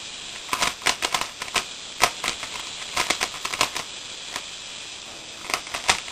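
3x3x3 Rubik's Cube being turned fast in a speedsolve: bursts of quick plastic clicks as the layers snap round, with a pause of about a second and a half past the middle before the turning picks up again.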